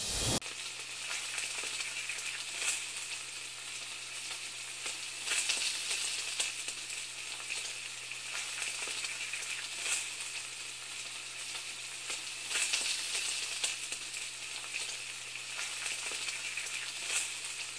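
A steady crackling hiss, like a sizzle, over a low steady hum, swelling several times.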